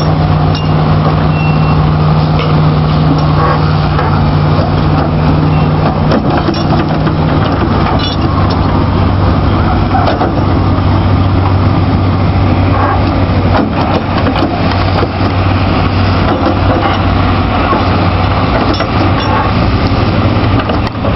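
Caterpillar 430E backhoe loader's diesel engine running under load while the backhoe arm digs sand; the engine note drops to a lower pitch about seven seconds in.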